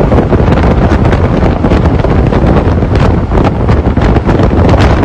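Heavy wind buffeting the microphone in rapid, irregular gusts, over the rumble of a vehicle driving on the road.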